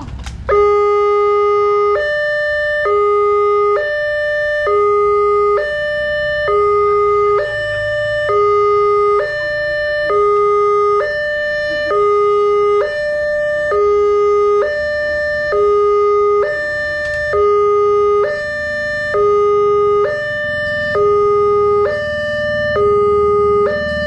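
Railway level-crossing warning alarm sounding: an electronic two-tone chime that switches suddenly on about half a second in and then alternates a lower and a higher tone, each held just under a second. It warns that a rail vehicle is approaching while the barrier arms come down.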